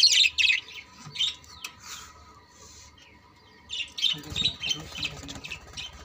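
Budgerigars chirping and chattering in quick high bursts: a loud flurry at the start, a few scattered chirps, then another spell of chatter from about four seconds in.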